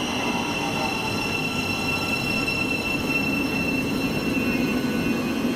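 A train running on the line: a steady rolling rumble with thin, high ringing tones above it, the strongest slowly falling in pitch.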